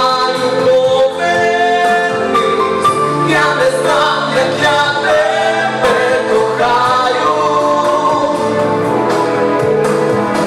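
A man singing a song into a handheld microphone over musical accompaniment; the song comes to its end near the end.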